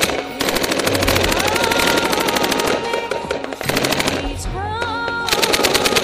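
Rapid automatic gunfire, a long run of quick evenly spaced shots that stops and restarts several times, laid over music with a wavering held melody.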